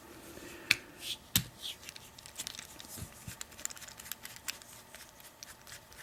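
Faint handling of a metal padlock and lock-picking tools: scattered small clicks and ticks, with a couple of sharper clicks in the first second and a half.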